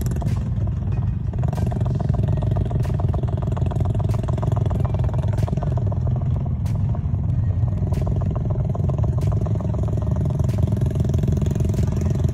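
Quad-bike ATV engines running steadily in a flooded mud pit, a constant low engine drone with faint ticks about every second and a quarter.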